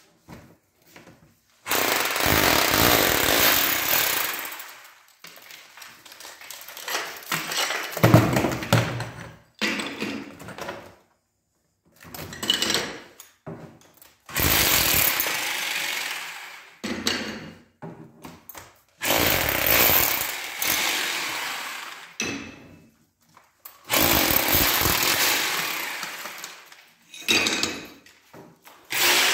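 Power chisel (rotary hammer with a chisel bit) hammering old ceramic tiles and their adhesive off a wall, in repeated bursts of one to three seconds with short pauses between.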